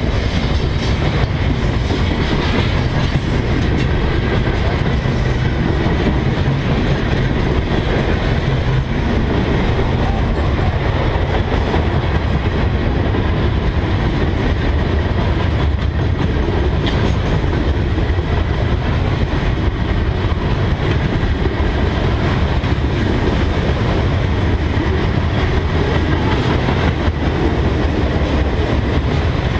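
A mixed freight train's cars (refrigerated boxcars, autoracks and boxcars) rolling past close by: a steady, loud rumble of steel wheels on the rails, going on without a break.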